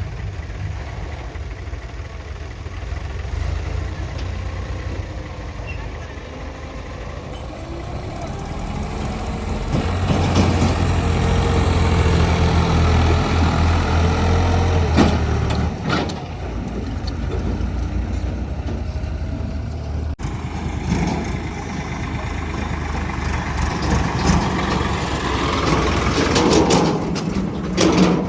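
Heavy diesel engine running, getting louder about ten seconds in and holding there for several seconds, with a few sharp knocks.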